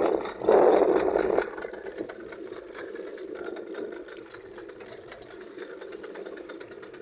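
Motorboat engine running steadily, louder for about the first second and a half, then settling into a lower, even running.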